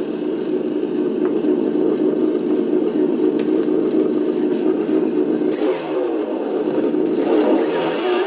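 Simulated engine sound from a G.T. Power RC sound and light module, played through its small loudspeaker: a steady idle, with brief revs about five and a half seconds in and again near the end as the transmitter throttle is worked.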